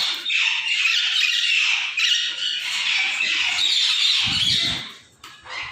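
Parrots squawking and chattering together, a dense, continuous din of shrill calls that breaks off briefly about five seconds in.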